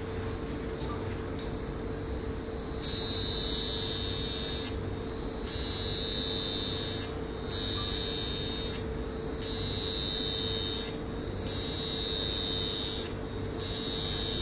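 High-frequency facial wand buzzing, a high electric hiss that starts about three seconds in and then comes in repeated bursts of one and a half to two seconds with short breaks between, over a steady low hum from the machine.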